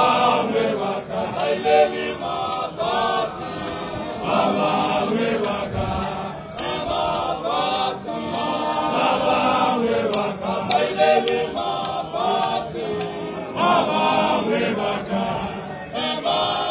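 A group of men singing together as a choir, chanting without instruments.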